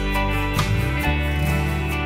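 Background music: country-style guitar, with strummed and slide-guitar notes.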